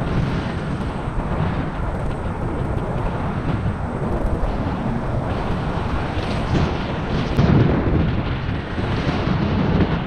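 Wind buffeting the microphone of a helmet camera on a moving electric scooter: a steady rough rumble, briefly louder about seven and a half seconds in.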